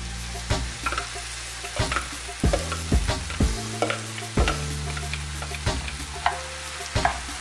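Yellow pepper and hominy mixture sizzling as it is scraped out of a food processor bowl into a hot saucepan of onions and garlic, with a spatula knocking and scraping against the bowl and pan every half second or so.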